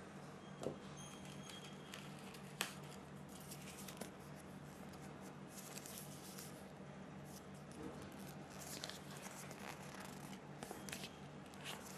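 Faint handling noises as a small plastic USB charger and a paper instruction booklet are picked up and turned over in the hands: light rustles and scrapes, with two sharp clicks in the first three seconds. A steady low hum lies underneath.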